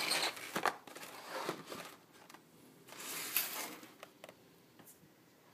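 A cardboard tablet retail box being handled and turned over in the hands, rustling and scraping in two bouts with a few light knocks.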